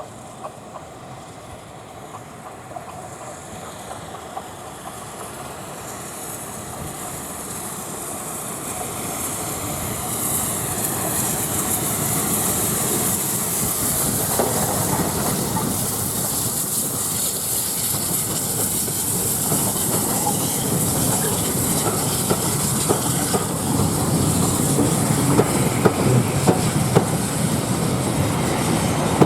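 Taff Vale Railway 0-6-2T steam tank locomotive No. 85 and its train coming closer, growing steadily louder, with a hiss of steam that swells from about a third of the way in. Wheels click over the rail joints near the end.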